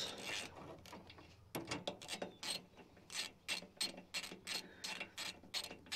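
Hand socket ratchet clicking in irregular runs as it backs out a 10 mm bolt holding the skid plate under a UTV, the clicks starting about a second and a half in.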